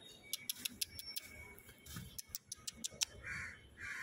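A dozen or so faint, sharp clicks at an uneven pace, followed near the end by two short breathy sounds.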